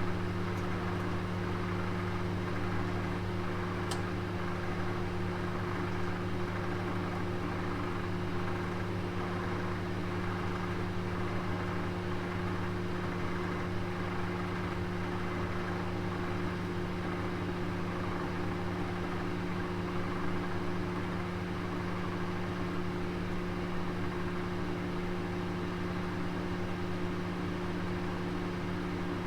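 Oven running with a roast inside: a steady low hum with an even airy hiss over it, unchanging throughout.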